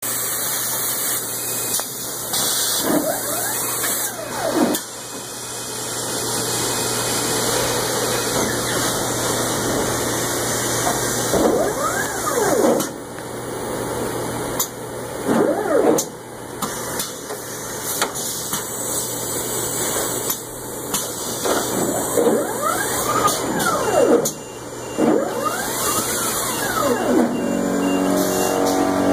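Sheet-handling conveyor machinery running, with a steady mechanical noise and its drive whining up and down in pitch several times, plus some light ticks.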